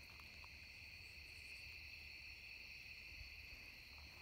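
Faint, steady chorus of crickets trilling at night, with a low steady rumble underneath.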